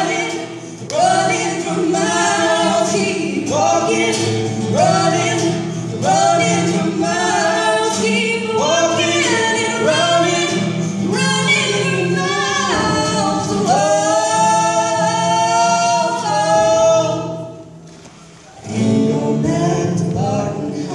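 A male and a female voice singing together over a strummed acoustic guitar. The music drops away briefly near the end, then the voices come back in.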